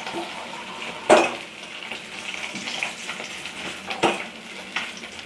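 Metal spatula scraping and clanking against a metal wok as fried climbing perch are lifted out of hot mustard oil, over a low sizzle of frying. The loudest clank comes about a second in, with two more near the end.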